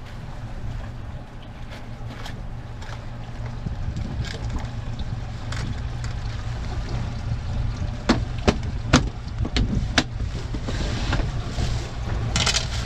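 Steady low hum of a boat's motor with wind noise on the microphone. About eight seconds in comes a quick run of about five sharp knocks, and a short scraping rustle near the end.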